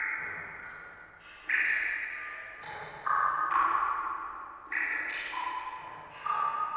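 Water drops falling one by one into standing water, each a ringing, pitched plink with a long echoing tail, as at the bottom of a well. About four drips land, roughly every second and a half, each at a slightly different pitch.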